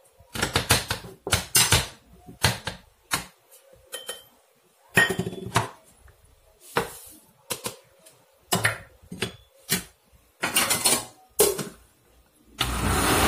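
Kitchen clatter as ingredients go into a blender: a string of separate knocks and clinks of spoons, packets and containers against the jar and the counter. Near the end comes a loud, steady rushing noise lasting about a second and a half.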